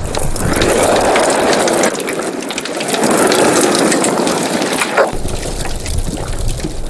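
Water bubbling and gurgling loudly, a dense crackle of bubbles that swells twice.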